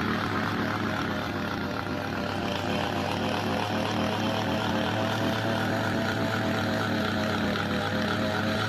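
An engine running at a steady speed, a continuous drone with no change in pitch.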